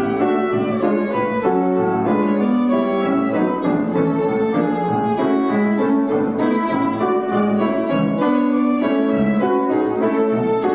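Violin playing a slow, sustained classical melody with piano accompaniment.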